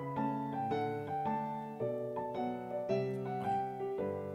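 Background piano music: a melody of single notes, a new one about every half second, over held bass notes.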